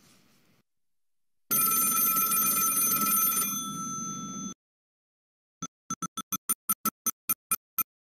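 Electronic telephone ringtone sound effect: a steady high ringing tone about a second and a half in, lasting about three seconds. After a short gap the same tone comes back chopped into short blips, about five a second.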